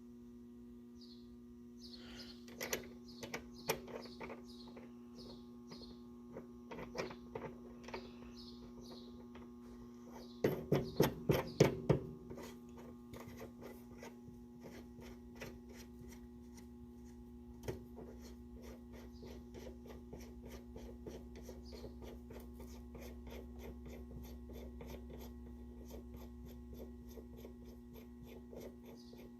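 Ratchet and inner tie rod removal tool clicking and clinking as a new inner tie rod is tightened, with a quick run of about six sharp clicks about ten seconds in. A steady electrical hum runs underneath.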